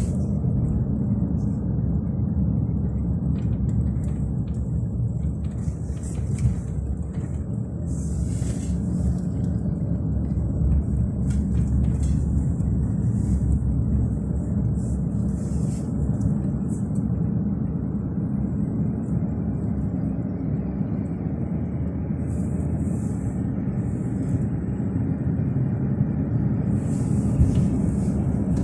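Road noise of a moving car heard from inside the cabin: a steady low rumble of tyres and engine, with brief patches of hiss now and then.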